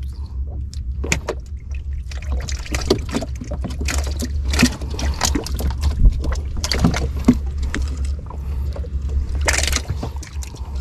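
Irregular knocks and clatters of handling aboard a small wooden fishing sampan, over a steady low rumble.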